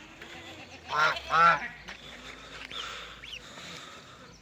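An adult duck quacks twice in quick succession, loud and nasal, about a second in. Faint high peeps of ducklings follow.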